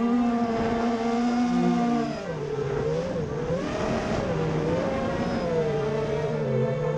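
FPV racing quadcopter's motors and propellers whining, heard from the onboard camera, the pitch dipping and rising smoothly as the throttle changes, with a rush of air about halfway through.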